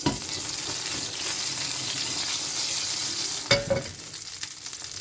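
Cumin seeds frying in hot oil in a pan, a steady sizzle. One short clink about three and a half seconds in.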